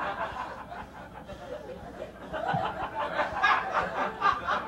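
Theatre audience laughing, softer at first and building up about halfway through.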